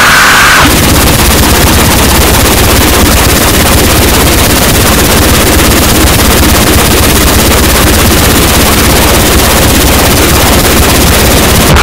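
Noisecore music: a loud, dense wall of distorted noise spread across all pitches, with a fast rattling pulse underneath. A brief higher held tone cuts off within the first second.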